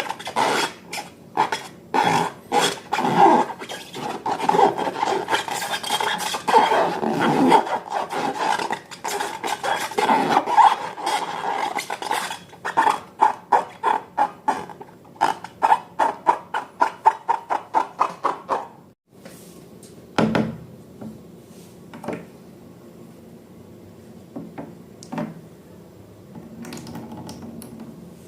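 Slime being stirred in a bowl with a utensil: quick, repeated scraping strokes against the bowl, about two or three a second toward the end. About nineteen seconds in they stop abruptly, and a few single light knocks follow.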